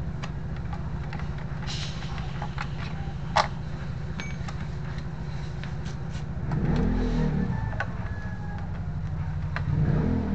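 An engine runs steadily with a low drone, and a pitched sound rises and falls over it about two-thirds of the way through. Sharp metal clicks come from a hand tool working the bolts of a Yamaha scooter's CVT cover.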